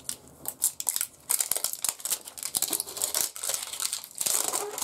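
Clear plastic film wrapping crinkling as it is peeled off a rolled diamond-painting canvas. A few crackles at first, then a dense run of crackling from about a second in.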